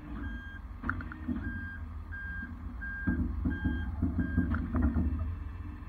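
Rollback tow truck's reverse alarm beeping at a steady pace, about six beeps roughly 0.7 s apart, over the truck's engine running as it backs up. A couple of short metallic clanks come about a second in and again near the end of the beeping.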